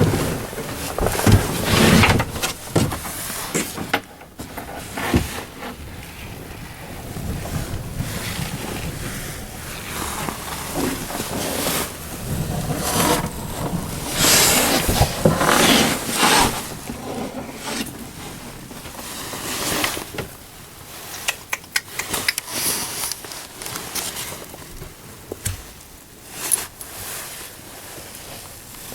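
Irregular scraping and knocking, with wind rushing on the microphone.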